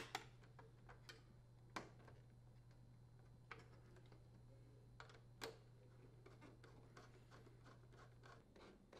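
Near silence, with a few faint clicks and scrapes of a screw and a screwdriver being handled against a dishwasher's stainless-steel door panel. A faint low hum stops a little before the end.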